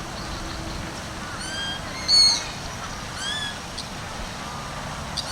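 Birds calling: a handful of short arched whistled notes, the loudest about two seconds in, over a low steady background rumble.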